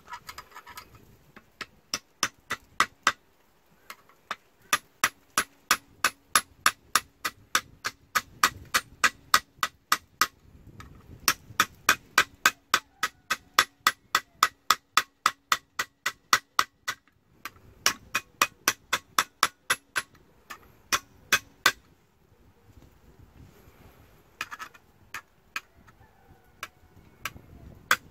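Edge of a curved steel kitchen knife struck over and over against the edge of a steel blade clamped in a vise. It makes sharp metallic clicks, about three a second, in runs broken by short pauses.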